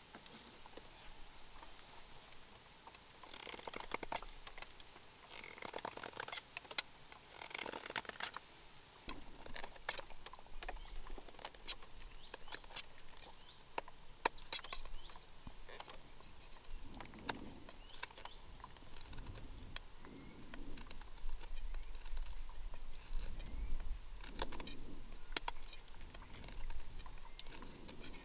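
A knife blade shaving and scraping a small piece of bamboo held in the hand. There are a few longer scraping strokes in the first third, then many short, sharp clicks and scrapes.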